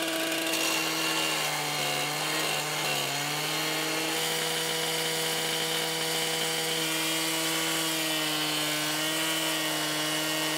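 Abrasive rail cut-off saw running at high speed as its disc grinds through a steel rail: a steady motor hum with a grinding hiss on top. The pitch sags briefly about two seconds in as the disc bites.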